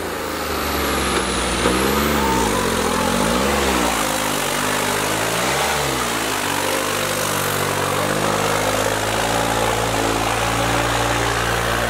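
Diesel tractor engine running hard under load while dragging a harrow through ploughed soil. Its pitch swings up and down a few times in the first half, then holds steady at high revs.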